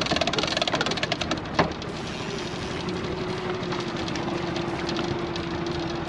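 Small outboard motor running steadily. Over the first second and a half a fast ticking rattle sits on top of it, ending in one sharp knock; after that only the even motor hum remains.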